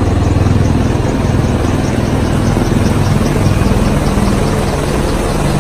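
Military helicopters flying low overhead: a loud, steady rotor thrum and engine noise.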